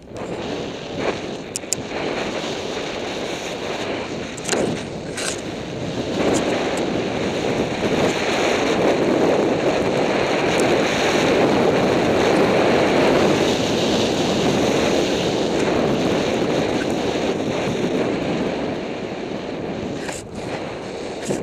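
Steady rushing of wind over the microphone mixed with skis sliding and scraping on snow during a downhill run, with a few knocks in the first several seconds.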